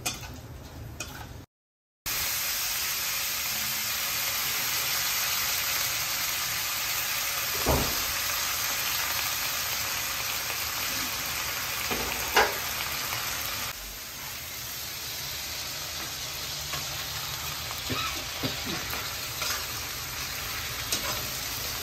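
Sliced onions and whole spices sizzling in hot mustard oil in a wok, with a metal spatula scraping and tapping the pan a few times. The sizzle starts abruptly after a brief silence about two seconds in, and eases a little about two-thirds of the way through.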